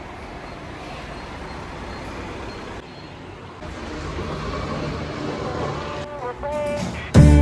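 Steady road traffic and street noise around a fuel station, slowly growing louder, with a few short pitched sounds near the end. Music with drums comes in just as it ends.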